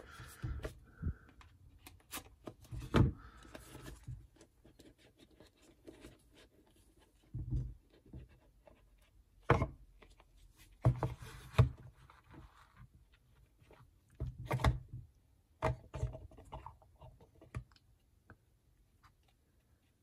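A foil-covered cardboard trading-card box being handled and opened with a small knife: scattered taps and knocks, with short scraping and sliding sounds now and then.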